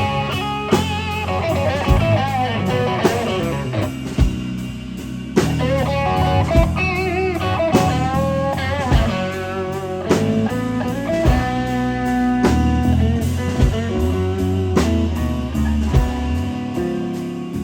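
Live blues band playing a slow blues: an electric guitar lead with string bends over bass and a drum kit, drum hits falling about once a second.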